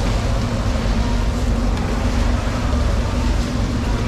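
Steady low rumble of running machinery with a constant hum, unbroken throughout.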